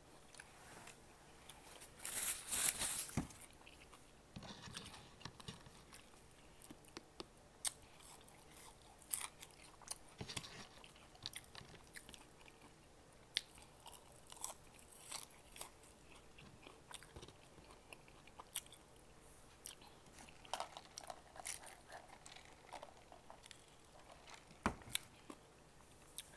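A person chewing and biting McDonald's chicken nuggets and French fries: soft mouth clicks and chewing throughout, with a louder crunchy bite about two seconds in and another spell of louder chewing near the end.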